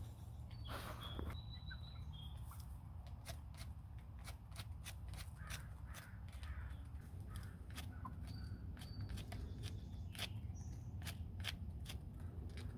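Free-ranging backyard hens faintly clucking, with a few short high bird chirps and a scatter of sharp clicks.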